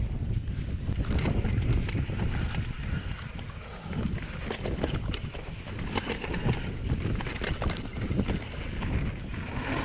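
Wind buffeting an action camera's microphone on a mountain bike ridden along a rough dirt trail, with tyres rumbling over the ground and frequent clicks and knocks from the bike over bumps.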